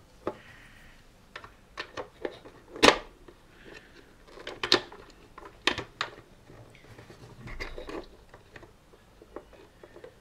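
Plastic clock-kit parts clicking and tapping as they are pressed into the clear plastic case by hand while the regulator is fitted, with light handling rustle between. The clicks come at irregular intervals, the sharpest about three seconds in.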